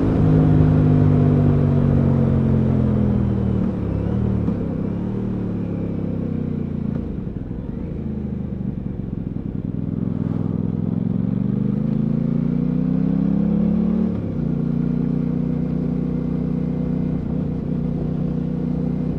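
Aprilia Tuono 660's parallel-twin engine heard from the rider's seat. Its pitch falls as the bike slows over the first four seconds and stays low for a few seconds. It then climbs steadily under acceleration and drops sharply about fourteen seconds in at a gear change, then holds steady.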